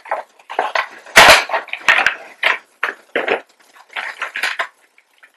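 Cardboard box and clear plastic packaging being handled as a vinyl figure is slid out of its window box: a run of short rustles, crinkles and scrapes, with a louder thump about a second in.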